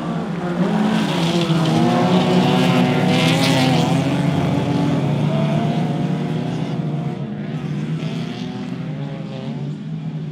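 A pack of folk-race cars accelerating hard on a dirt track, several engines revving at once with their pitches rising and falling over one another. The sound swells about half a second in and fades as the pack moves away near the end.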